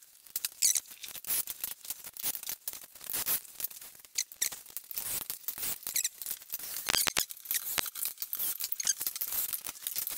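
Scattered clicks, knocks and scrapes, with a few short squeaks, as a large painted wainscot frame is handled and shuffled into place against the wall, the sharpest clicks about seven seconds in.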